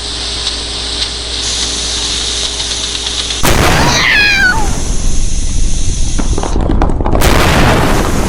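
Pressure cooker hissing steam steadily, then about three and a half seconds in a sudden loud blast of noise as it blows, with a cat's yowls sliding down in pitch over it; the loud rushing noise goes on, surging again near the end.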